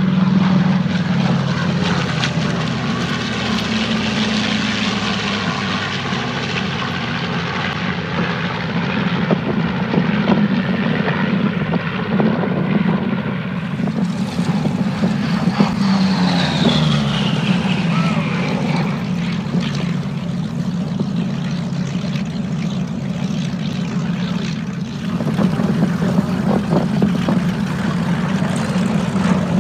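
A P-38 Lightning's twin Allison V-1710 V12 piston engines droning during a low flypast. About halfway through, the pitch falls as the plane passes.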